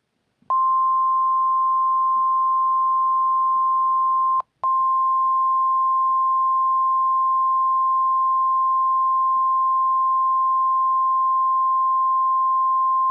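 NOAA Weather Radio warning alarm tone: a steady single-pitch 1050 Hz beep signalling that a weather warning follows. It drops out briefly with a click about four seconds in, then carries on.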